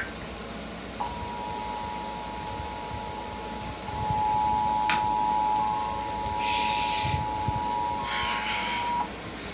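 Emergency Alert System attention signal: a steady two-tone beep of about 853 and 960 Hz, starting about a second in and cutting off sharply after about eight seconds. It signals that an emergency alert, here a tornado warning, is about to be read. A sharp click and two short bursts of hiss sound over it in the second half.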